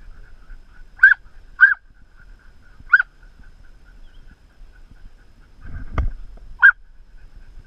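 A dog whining on a steady high note and breaking into four short, sharp yelps on the same pitch, with a dull thump just before the last yelp.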